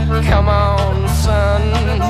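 Instrumental passage of a country-rock band song: drum hits about twice a second over a steady bass, with a held melody line on top.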